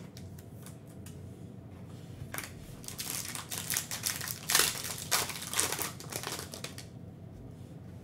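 Foil wrapper of a trading-card pack being torn open and crumpled in the hands: a run of crackly crinkling starting about two seconds in, loudest midway, and dying away about a second before the end.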